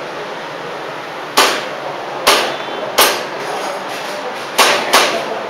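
Airsoft pistol fired five times at an uneven pace, each shot a sharp crack.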